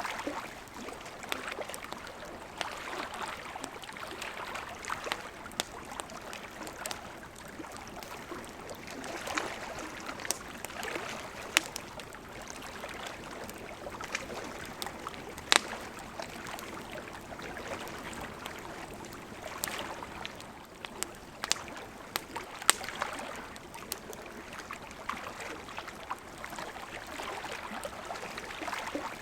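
Wood campfire crackling, with sharp irregular pops, a few of them much louder, over the gentle lapping of lake water.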